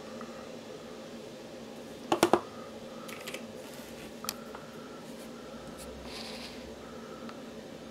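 Hand handling and repositioning hard plastic action figures: a quick cluster of three sharp clicks about two seconds in, then a few lighter clicks, over a steady low hum.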